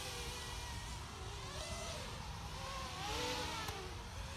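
Two quadcopter racing drones, Bugs 8 Pro builds on Wizard X220 frames, flying overhead. Their motors and propellers give a faint whine that rises and falls in pitch with the throttle, over a low wind rumble on the microphone.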